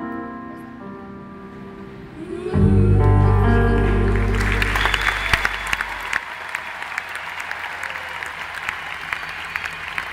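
A live rock band plays the song's closing chords, with a loud low final chord coming in about two and a half seconds in, and the arena crowd breaks into applause and cheering that carries on over the fading chord.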